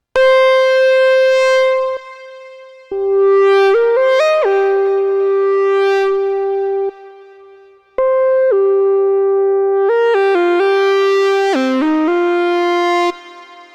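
Moog Subsequent 25 analog synthesizer playing a bright, buzzy monophonic lead: held single notes broken by quick stepped runs up and down, in three phrases with reverb tails in the gaps.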